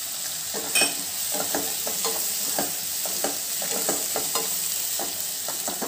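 Sliced tomatoes and onions frying in butter and oil in a nonstick wok, sizzling with a steady hiss, while a wooden spatula stirs them with a run of short, irregular scraping knocks, a few a second.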